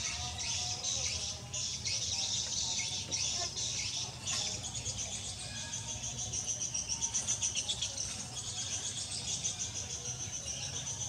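Outdoor chorus of birds and insects chirping without a break, with a fast pulsing trill about seven seconds in.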